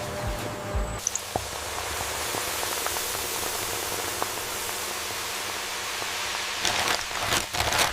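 A steady hiss, like rain, with a few faint ticks about a second in and a louder, uneven swell near the end.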